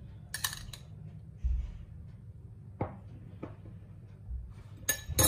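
A steel spoon clinking against a small glass bowl while oil is spooned out and drizzled over food: a sharp clink about half a second in, a couple of softer taps in the middle, and a louder cluster of clinks near the end, over a steady low hum.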